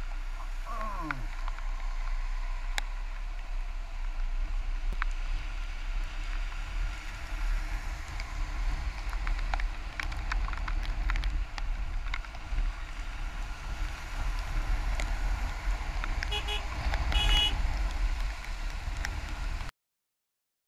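Scooter riding noise in the rain: a steady low rumble of engine and wind on the microphone, with scattered sharp ticks. A vehicle horn honks twice briefly about sixteen to seventeen seconds in, and the sound cuts off just before the end.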